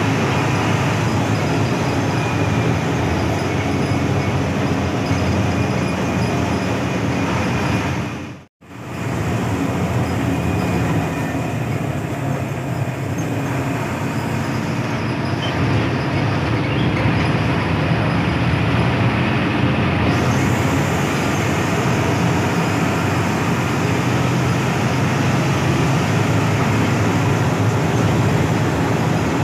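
Steady running noise inside the cabin of a moving Hino AK8 front-engined bus: engine drone and road rumble. The sound cuts out for a moment about eight seconds in, then resumes.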